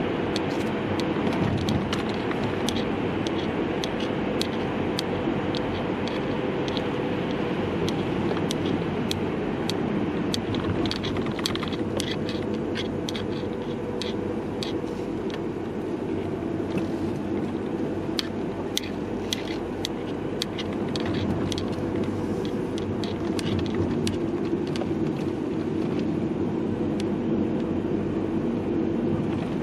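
Steady road and engine rumble heard inside a moving car, with frequent irregular sharp clicks from the camera's hanging strap knocking against the camera.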